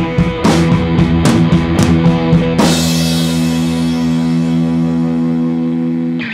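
Rock background music with drums and guitar. About two and a half seconds in, the band hits a final crash and a held chord that rings on to the end.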